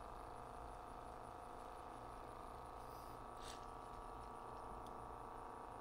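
Capstan motor of a Pioneer CT-50R cassette deck running, a steady whine of several tones that is real noisy even with a little lubricant just applied; the owner suspects a dry or worn bearing inside the motor.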